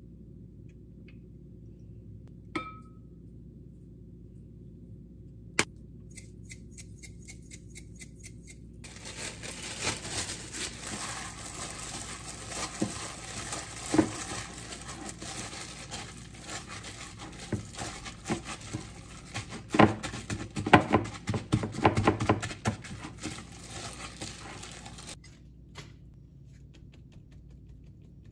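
A hand in a thin disposable plastic glove kneading a ground-meat filling in a glass mixing bowl. It makes a dense crinkling and squishing with many small knocks against the glass, from about nine seconds in until it stops abruptly near the end. Before that come two sharp taps, the first ringing briefly.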